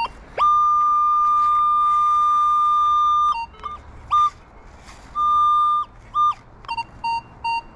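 Minelab Vanquish 540 metal detector sounding off on a target as the coil sweeps over it. A long steady high tone of about three seconds is followed by several shorter tones at the same pitch, then a run of short, slightly lower beeps near the end.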